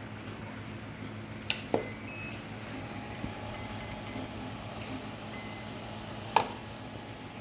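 Radio-controlled 1/12-scale model excavator running with a steady low electric hum and faint high whining tones. Two sharp clicks sound, one about a second and a half in and one near the end, with a softer knock just after the first.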